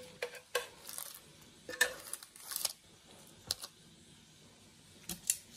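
Metal kitchen tongs clicking and clinking against a metal roasting pan as a roasted Cornish hen is lifted out: a handful of separate sharp clicks, with a short quiet stretch before two last clicks near the end.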